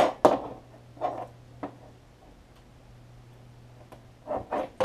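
Small clicks and knocks of test leads and parts being handled on a workbench: a sharp one just after the start, a couple more over the next second and a half, and a quick cluster near the end. A faint steady low hum runs underneath.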